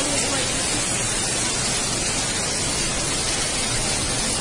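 Steady rushing of water: a loud, even hiss with no distinct events.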